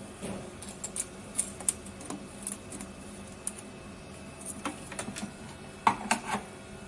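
Irregular light clicks and taps of a cable's connector plug being fitted into a socket on a machine's front panel and the cable being handled, with a cluster of sharper clicks near the end.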